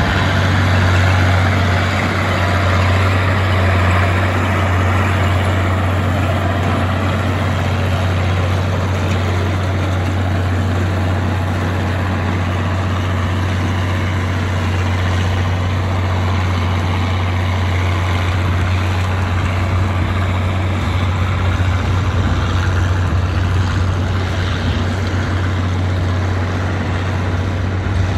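Massey Ferguson 1100 tractor's six-cylinder diesel engine running steadily under load, driving a PTO mower-conditioner that is cutting grass. A loud, even low hum.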